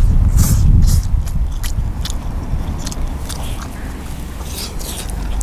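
Close-up biting and chewing of crisply grilled mackerel eaten by hand, with short sharp clicks scattered through. A low rumble runs underneath, strongest in the first second.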